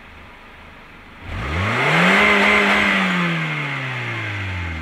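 Car engine idling, then revved once about a second in. The pitch climbs quickly, holds briefly near the top, then slowly falls back toward idle.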